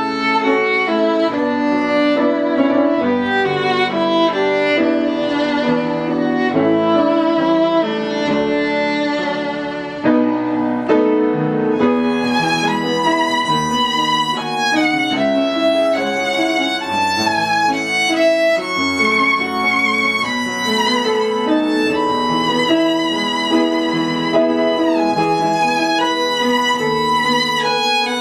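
Background music carried by a violin playing a melody with vibrato, growing brighter about halfway through.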